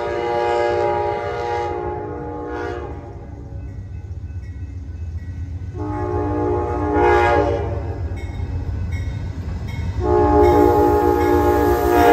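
An Amtrak GE P42DC Genesis diesel locomotive's chord horn sounds three times as the train approaches. The first blast is already sounding and stops about two and a half seconds in, the second lasts about two seconds from around six seconds in, and the third starts about ten seconds in and carries on as the locomotive draws level. Under the horn, the low rumble of the engine and wheels grows louder.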